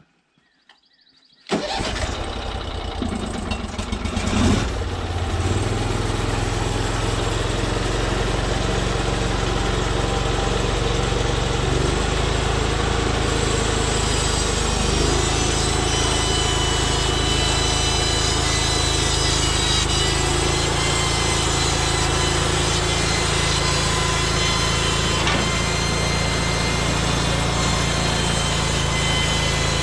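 Engine of a Norwood MX34 portable bandsaw mill starting about a second and a half in, surging briefly, then running steadily.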